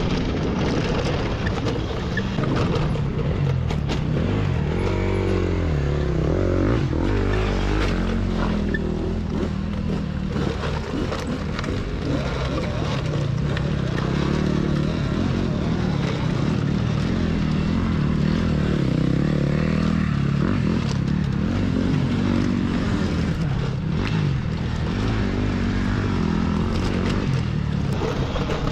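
Off-road dirt bikes racing: engines rev up and down over a steady rushing roar, with no pause throughout.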